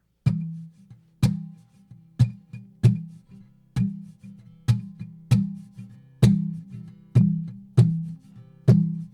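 Acoustic guitar strummed about once a second, each chord ringing out and fading, as an instrumental passage between sung verses of a hymn.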